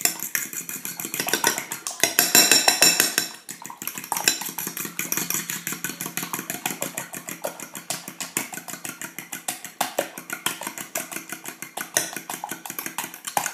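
Metal fork beating eggs in a glass bowl: rapid, steady clicking of the tines against the glass, loudest about two to three seconds in.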